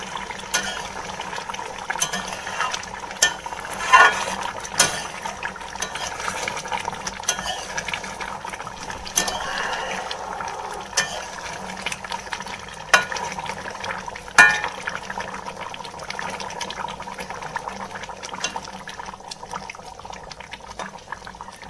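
A metal ladle stirring a thick fish curry in a metal kadai, scraping and clinking irregularly against the pan's sides, over a steady low hiss.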